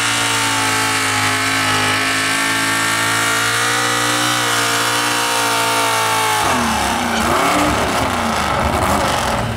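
Super stock 2wd pulling truck, an older Chevrolet pickup with open exhaust stacks through the hood, running at a steady high idle while hooked to the sled. About six and a half seconds in the engine revs hard and its pitch swings up and down as the truck launches into the pull under the sled's load.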